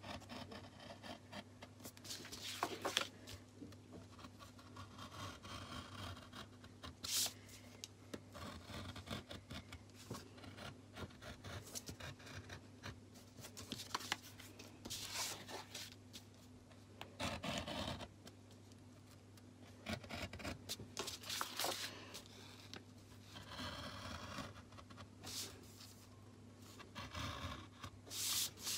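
Craft knife blade cutting through card in short, irregular scratching strokes, with the sheet shifting and rubbing on the table between cuts.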